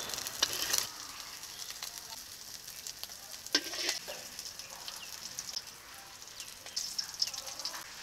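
Hot mustard oil sizzling and crackling in a brass kadai after a batch of fried puti fish has been lifted out, loudest in the first second and then settling to a quieter, steady sizzle. A single sharp knock, like a utensil on metal, about three and a half seconds in.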